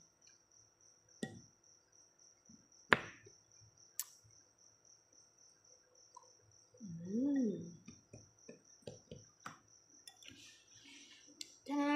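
A cricket chirps steadily in a fast, even pulse, under sharp clicks of a plastic spoon on a ceramic bowl; the loudest click comes about three seconds in. About seven seconds in there is a short hummed 'mmm' that rises and falls in pitch, followed by a few small clicks.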